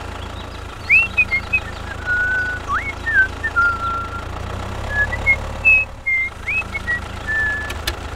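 Tractor engine running steadily with a low hum. A string of short whistled notes plays over it, some sliding quickly upward and some held briefly.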